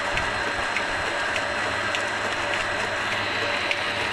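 Steady rushing of a running solar tube well pump, with a thin high tone and a faint mechanical tick about every 0.6 seconds.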